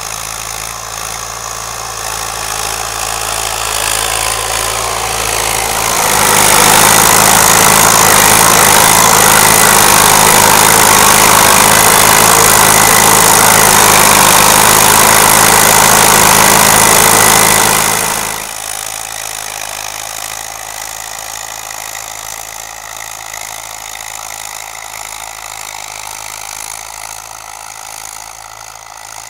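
Someca 715 TD tractor's diesel engine running steadily while pulling a tillage implement across a field. From about six to eighteen seconds it is much louder, heard right beside the upright exhaust stack; before and after it is further off.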